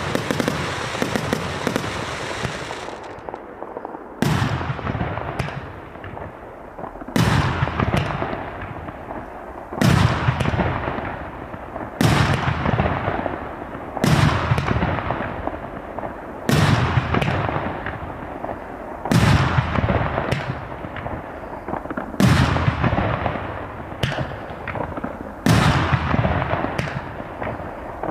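A 1.3G professional fireworks cake firing: dense crackling at first, then a sharp loud report every two to two and a half seconds, each trailing off in a fading crackle.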